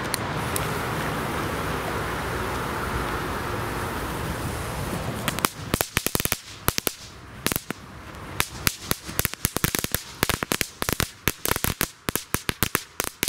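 Knatterpeitsche (crackling whip firework) going off on asphalt. For the first five seconds there is only a steady rush of background noise. Then the whip starts firing a rapid, irregular string of sharp, very loud cracks, several a second, that keeps going.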